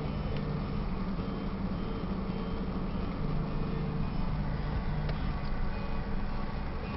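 Steady engine hum and road noise of a moving car, heard from inside the cabin.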